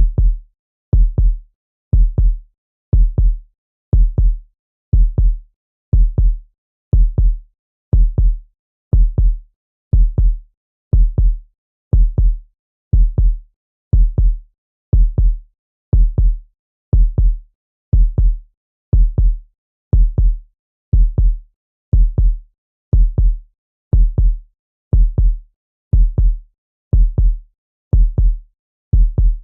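Heartbeat sound effect: a steady lub-dub double thump, about one beat a second.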